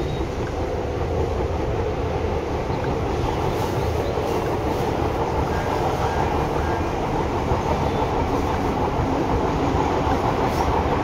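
Seibu 6000 series electric train running on the line, heard from inside the motor car. Steady rolling and running noise of wheels on track, growing slightly louder across the stretch.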